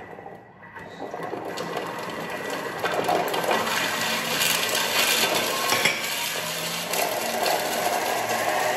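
Thermomix food processor running, with a steady whirring and its bowl contents churning and rattling. The sound builds up about a second in and then holds steady.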